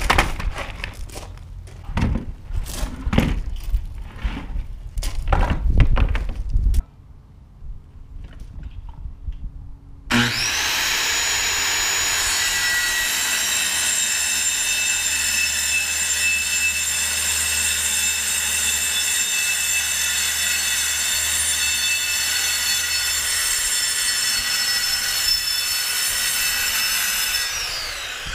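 Sheet of OSB knocked and shifted onto sawhorses, a run of thumps over the first seven seconds. About ten seconds in, a circular saw starts with a sudden high whine and runs steadily, cutting the OSB subfloor sheet, then winds down with a falling whine near the end.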